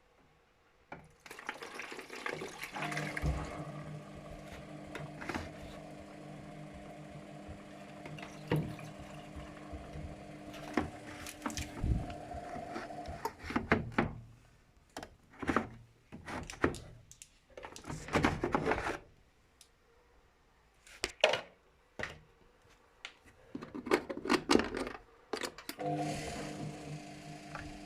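Luxor WM 1042 front-loading washing machine tumbling its drum on a Cotton 90°C drum-clean cycle: the motor hums steadily and water sloshes. The motor stops about 13 seconds in, leaving irregular water swishes and knocks, then starts again near the end, as the drum pauses between turns.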